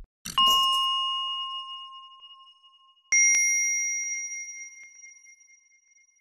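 Two bell-like ding sound effects from an animated end screen. The first comes about a third of a second in and the second, higher one about three seconds in. Each rings out and fades over two to three seconds.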